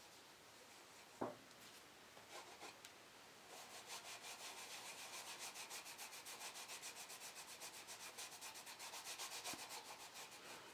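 Rapid back-and-forth hand rubbing strokes, about five a second, starting a few seconds in, after a single sharp knock about a second in.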